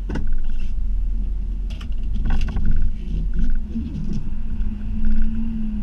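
Snow-plow truck rumbling along, with several sharp knocks and clunks as it comes down a hump of plowed snow.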